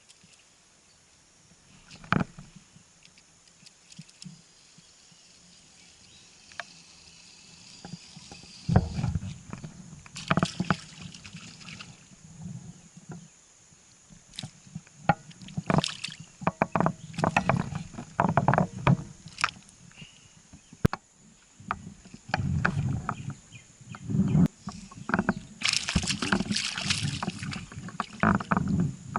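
Irregular knocks, clicks and thumps against a small pontoon boat, with bursts of water splashing. It starts with a single knock, then grows busier from about a third of the way in.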